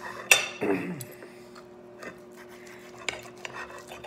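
Metal cutlery being handled at a table: a sharp clink about a third of a second in, followed by a short sound that falls in pitch, then a few lighter clicks, over a steady low hum.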